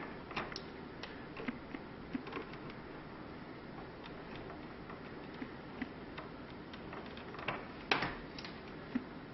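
Light, scattered clicks and ticks of small broken plastic shutter pieces being cut and worked loose with nippers, with one sharper snap about eight seconds in.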